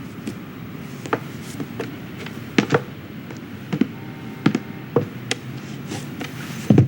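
Animated-film foley: a dozen or so light taps, clicks and knocks at irregular times over a steady low rumble, with the loudest knocks near the end.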